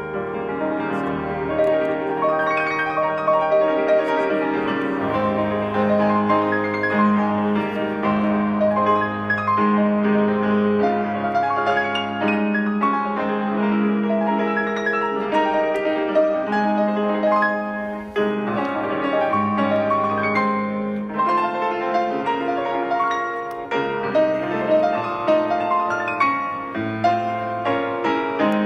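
Background music led by piano, with a steady sustained bass note under changing melody notes.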